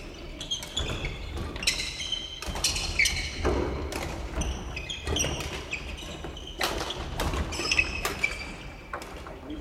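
Badminton rackets striking shuttlecocks over and over in irregular quick taps, mixed with thuds of footfalls and short high squeaks of shoes on the wooden court floor, echoing in a large sports hall.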